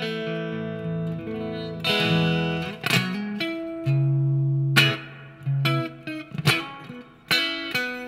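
Epiphone Les Paul Standard Pro electric guitar played through a Marshall MG30FX combo amp on the clean channel with spring reverb, neck pickup split to single-coil: ringing chords, with a series of sharp strums in the second half.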